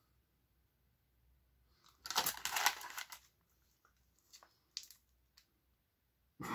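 Plastic hot-dog package crinkling as it is handled, for about a second starting two seconds in, followed by a few faint clicks.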